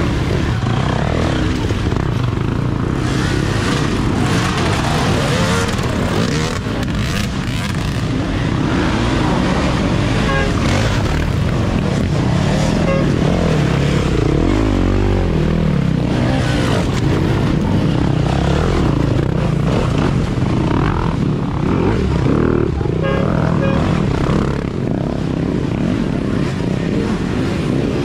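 Dirt bike engines revving hard and easing off in uneven bursts as the bikes pick their way through a rock garden, several overlapping.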